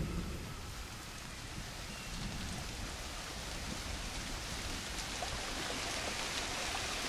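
Heavy rain falling on woodland foliage: a steady hiss that grows gradually louder.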